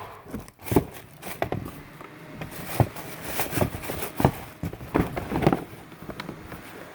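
Cardboard shoe box being handled and turned over: scattered light knocks, taps and rustles at irregular intervals.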